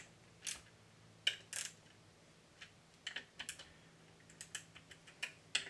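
Small metal hand wrench clicking on the cylinder-head bolts of a small air compressor pump as the bolts are run down: about nine short, scattered clicks at irregular intervals.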